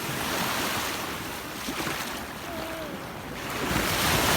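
Sea waves washing onto the shore, dropping back in the middle and surging louder again near the end as another wave comes in.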